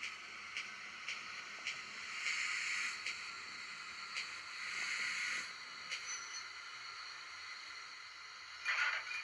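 Digital sound-decoder steam locomotive effects played through the small speaker of an OO gauge Mogul model: slow exhaust chuffs about two a second, broken twice by about a second of steam hiss, with a louder burst of hiss near the end.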